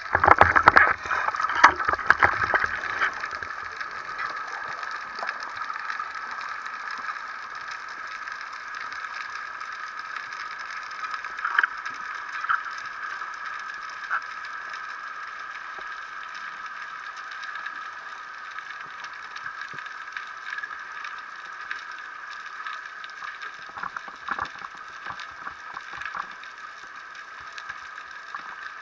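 Underwater ambience picked up by a camera under water: a steady muffled hiss, with a cluster of clicks and knocks in the first few seconds and a few scattered ticks later.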